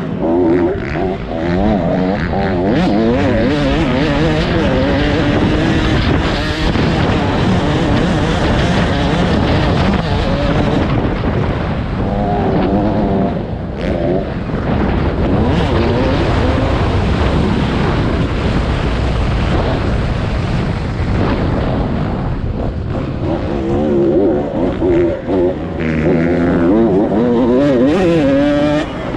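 Motocross dirt bike engines racing, revving up and falling off again and again, with several engines overlapping.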